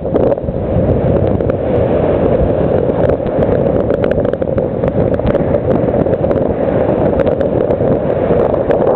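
Strong wind buffeting the camera microphone over the rush of breaking surf, a steady loud roar with frequent crackles.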